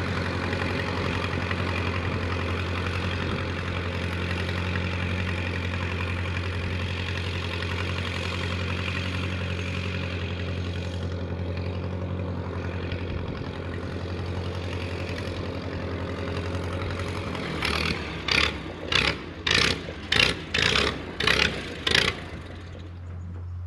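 1948 Silver King Model 42 tractor's engine running without a muffler as the tractor drives off. Near the end it gives a run of about eight loud, sharp bangs, roughly half a second apart, as it stumbles from fuel starvation, which the owner puts down to a dirty fuel tank.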